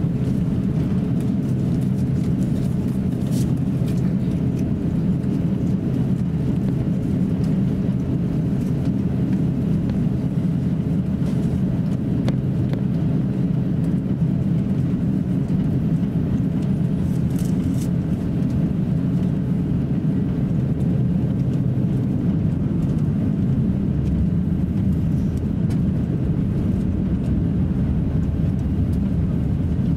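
Steady low rumble in the cabin of an Airbus A350-900 taxiing on the ground, with a few faint clicks.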